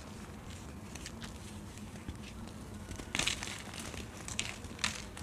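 Baking soda lumps crushed and squeezed in the hand: soft, irregular crunches and crackles as the packed powder breaks apart, the loudest crunch about three seconds in.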